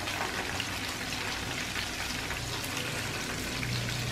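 Breaded shrimp deep-frying in hot oil: a steady sizzle full of fine crackles.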